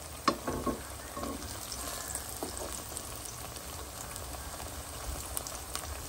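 Ripe plantain slices sizzling steadily in hot oil in a frying pan, with a few light clicks of kitchen tongs moving a browned slice, the sharpest just after the start.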